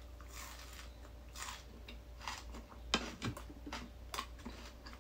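A person chewing crunchy raw cucumber salad and fresh greens close to the microphone: irregular crisp crunches, the loudest about three seconds in.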